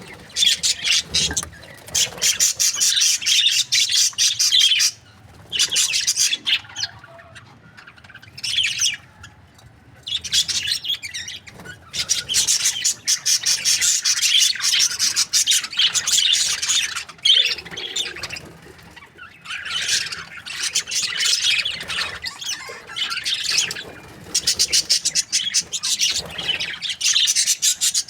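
Budgerigars chirping and chattering in long runs of rapid, high chirps, with a few short pauses.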